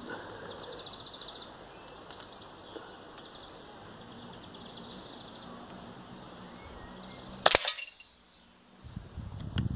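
A single air rifle shot, one sharp crack about three-quarters of the way through, fired during zeroing of the scope at 25 yards.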